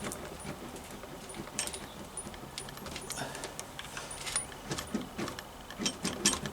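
Scattered light metallic clicks and clinks of spanners and metal parts being handled while working on motorcycle handlebar clamps.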